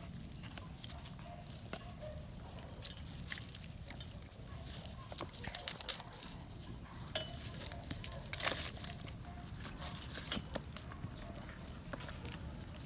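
Puppies eating and scuffling over food, with irregular sharp clicks and taps through the whole stretch.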